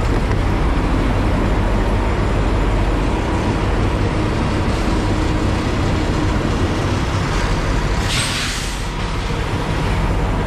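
Semi-truck diesel engine idling with a steady low rumble. About eight seconds in, a short burst of air hiss sounds over it.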